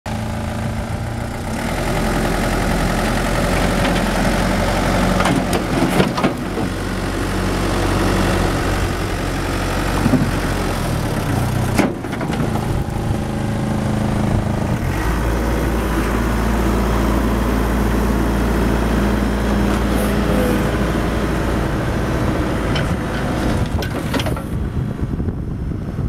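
Komatsu WB140 backhoe loader's diesel engine running steadily, its pitch shifting up and down a few times, with a few short knocks.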